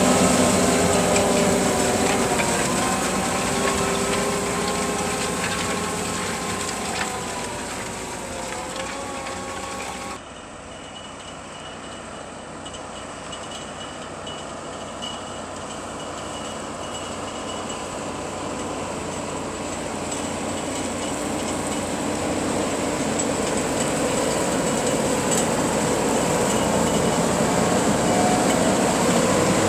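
Fendt 724 tractor's six-cylinder diesel engine working steadily under load while pulling a six-furrow reversible plough. It fades as the tractor moves away, drops abruptly about ten seconds in, and then grows steadily louder as the tractor comes back.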